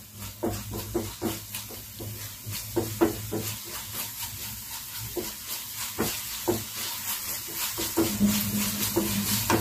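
Wooden spatula stirring and scraping a thick spice masala around a nonstick kadai as it fries, in irregular strokes a few times a second, with a light sizzle and a low steady hum underneath.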